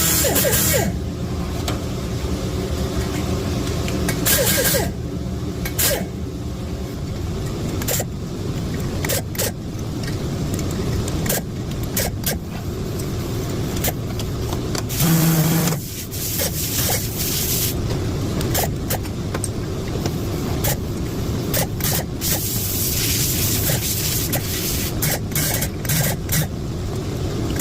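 Electric valve seat grinder spinning 30- and 60-degree stones on the exhaust valve seats of a Toyota 3VZ-E cylinder head, narrowing the 45-degree seat for a three-angle valve job. The motor hums steadily while it grinds, broken by frequent sharp clicks and knocks.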